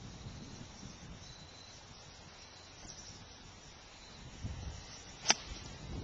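A golf club striking a ball off the tee: one sharp crack about five seconds in, over a faint steady hiss.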